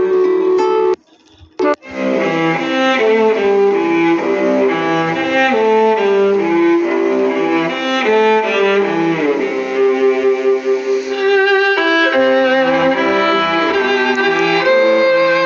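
Instrumental music led by violin over lower strings. It stops for about a second near the start, then another piece begins.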